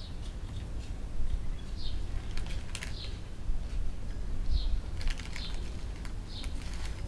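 Scattered small clicks and a few short, falling bird chirps over a steady low rumble of wind on the microphone.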